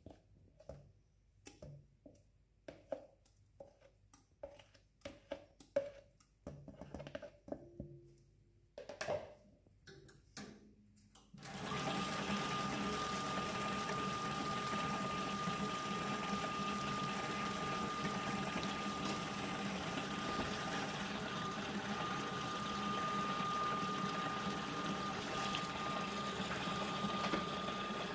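FAMAG IM 10 spiral dough mixer running steadily with a high whine over a motor hum, mixing pizza dough. It comes in suddenly about eleven seconds in, after a stretch of soft, scattered knocks and slaps.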